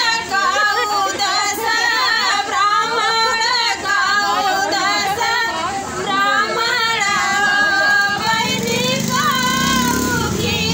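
Women singing a sohar, a Bhojpuri folk song, their voices picked up close by a handheld microphone. A low rumble sits under the singing near the end.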